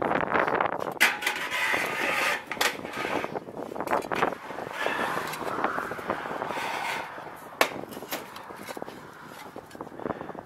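Scraping, rattling and sharp knocks of sheet metal and tools against a ribbed steel roof: a steel ridge cap and a tar can with a hammer being carried up the roof. The noise dies down near the end.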